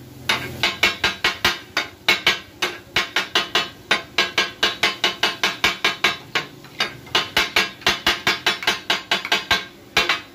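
Flat steel spatula blades chopping and striking against a steel tawa griddle: a fast run of sharp metallic clacks, about four or five a second, with a couple of short pauses. This is the tak-tak chopping of takatak-style street cooking.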